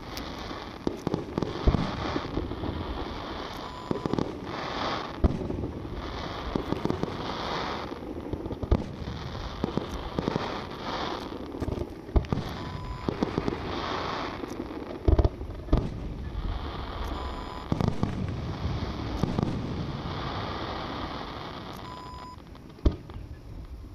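Fireworks display: shells bursting with sharp bangs at irregular intervals over a continuous rumble and crackle, with the loudest bangs about fifteen seconds in.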